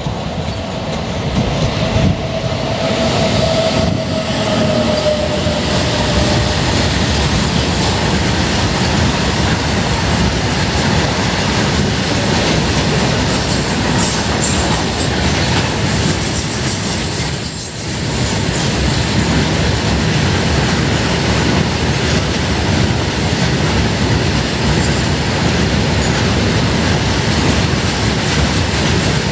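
A train running past close by: a loud, steady rumble and rattle of wheels on the rails that lasts the whole time, with a faint wheel squeal.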